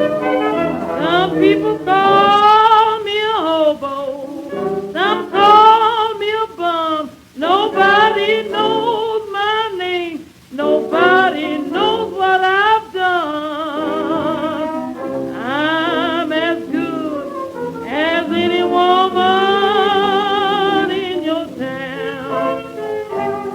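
A 1926 acoustic-era blues band recording played from a 78 rpm record. A wavering lead melody with wide vibrato and pitch bends runs over the band, with brief pauses about seven and ten seconds in. The sound is narrow and thin, with nothing above the 4 kHz ceiling of the old disc.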